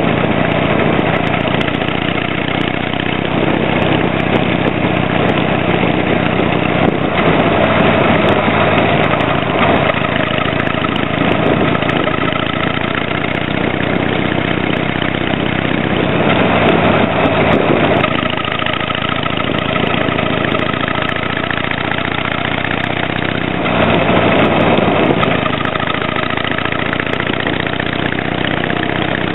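Harley-Davidson Sportster 883 Hugger's air-cooled V-twin exhaust, heard close to a tapered muffler with a silencer insert fitted, running steadily while riding. The note swells louder under throttle three times for a couple of seconds each.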